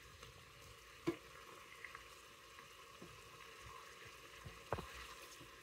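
Pork pieces frying with a faint sizzle in an electric multicooker's bowl while a plastic spatula turns them, with a couple of light knocks of the spatula against the bowl.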